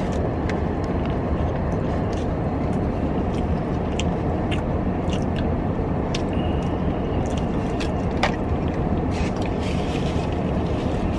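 Steady rumble and hiss inside a car with its engine and ventilation running, with scattered small clicks and rustles of food and packaging being handled.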